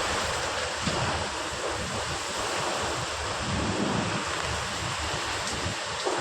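Heavy rain pouring down in a strong wind storm, a dense steady hiss, with gusts buffeting the microphone. Two sharp knocks stand out, about a second in and near the end.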